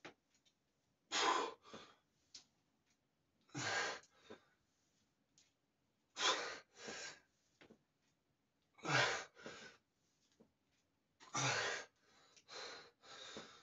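A man breathing hard through a set of barbell squats: a sharp, forceful exhale about every two and a half seconds, five in all, each followed by a shorter, quieter breath.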